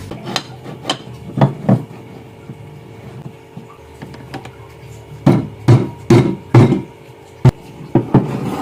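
Hammer or mallet knocking on wood in separate strikes: two about a second and a half in, then a run of four louder blows, then a few lighter taps near the end.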